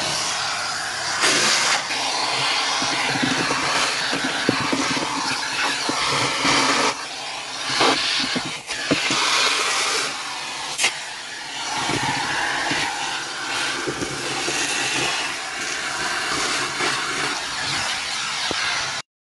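Vacuum cleaner running steadily, its crevice nozzle sucking dirt off a tractor cab's rubber floor mat, with occasional sharp clicks as bits of grit go up the nozzle.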